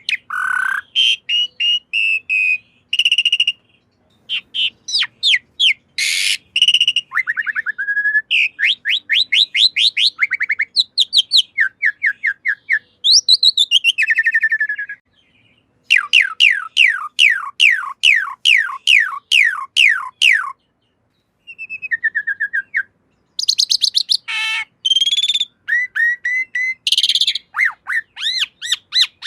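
Pied starling (jalak suren) singing: long runs of loud, clear whistled notes, many sliding down in pitch, repeated several times a second, with a few brief pauses.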